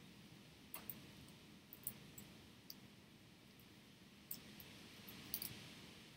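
Several faint, sharp clicks and ticks, scattered irregularly over low room hiss, from a small tool and fingertips handling tiny parts inside an opened iPhone 6.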